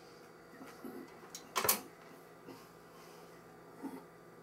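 A low steady hum with a few faint knocks, and one sharp click followed by a short rustle about a second and a half in.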